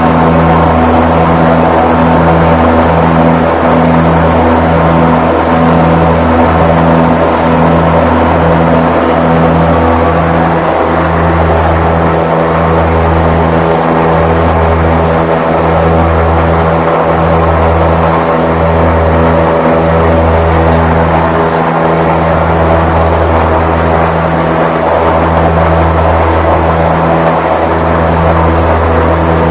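Goodyear blimp's engines and propellers running steadily in flight, a loud, constant drone heard inside the gondola. The low hum swells and dips in a slow, uneven pulsing beat.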